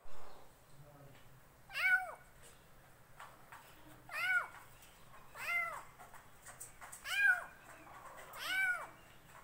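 A kitten meowing five times, a second or two apart. Each meow is short and rises and then falls in pitch.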